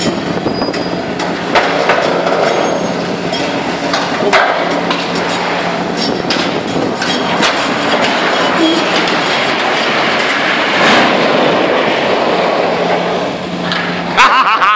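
Steel-framed roof with metal sheeting being pulled down and collapsing under a Hitachi hydraulic excavator: a continuous clanking, scraping crash of sheet metal and steel framing with many sharp impacts, over the steady hum of the excavator's engine.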